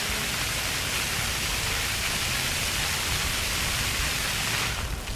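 Water jets of a park floor fountain splashing, a steady loud hiss; the spray drops away sharply near the end.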